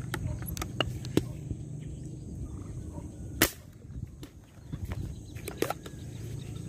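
A single sharp crack of an airgun shot about three and a half seconds in, fired at a fish, with a few fainter clicks before and after it.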